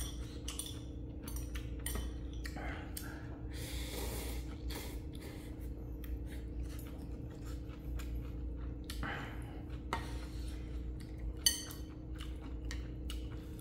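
Utensils clinking and knocking against a pot and dishes, with a few soft noisy bursts and one sharper click near the end, over a steady low hum.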